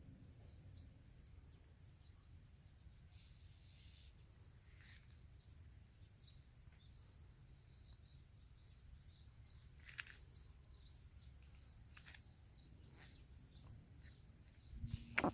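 Faint outdoor ambience: a steady high hiss and low rumble with scattered faint bird chirps, a slightly louder chirp about ten seconds in. A few sharp knocks, the loudest sounds, come near the end.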